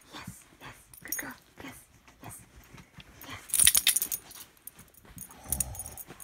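Pit bull grumbling and whimpering on a bed while being pushed to move, with a loud burst of bedding rustle and collar jingle about three and a half seconds in as she shifts her head, and a low groan near the end.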